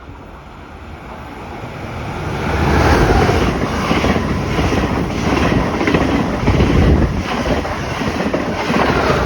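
A Trenitalia E464 electric locomotive and its regional train pass at speed. The noise builds over the first three seconds, then holds as a steady rush of wheels on rail with a rhythmic clatter about twice a second as the carriages go by.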